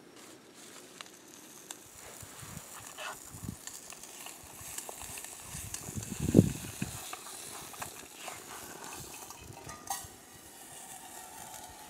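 Butter and chopped peppers and onions sizzling in a small pot on a camp stove, with a spoon stirring and scraping against the pot. One louder knock comes about six seconds in.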